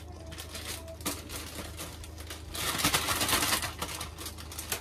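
Cooking handling sounds at the stove: scattered light clicks and taps, then about a second of louder rustling, rattling noise a little past the middle, over a low steady hum.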